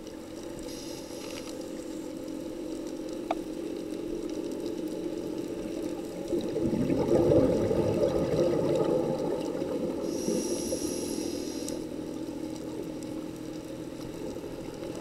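Scuba diver breathing through a regulator, heard underwater: a short hissing inhale near the start and again about ten seconds in, with a louder rush of exhaled bubbles in between.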